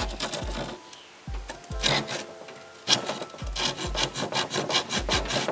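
Old handsaw cutting through a plywood sheet in back-and-forth strokes. There is a short pause about a second in, then a faster, steady run of strokes through the second half.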